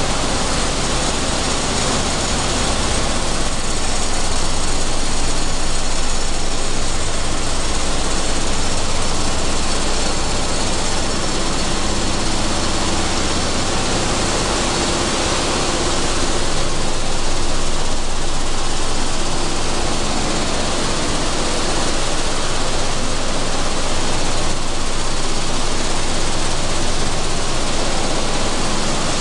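Sunflower seed hulling machine running: a loud, steady rushing noise with a faint hum, unchanging throughout.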